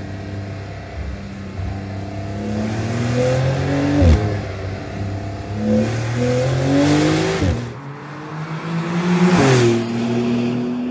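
Porsche 911 GTS (992) twin-turbo flat-six engine accelerating hard through the gears. Its pitch climbs and drops sharply at each upshift, about 4 seconds in, again near 7.5 seconds and near 9.5 seconds, then holds steadier at the end.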